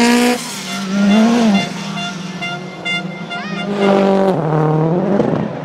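Rally car engine at full throttle, revving up and down as the driver lifts and gets back on the power, with a second loud surge about four seconds in that then falls in pitch as the car passes.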